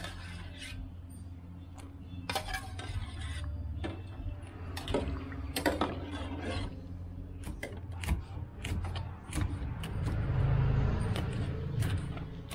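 Metal ladle clinking and scraping against a small aluminium saucepan while stirring pork balls in coconut milk, a string of irregular clicks and knocks over a steady low hum. Near the end a louder low rumble swells up.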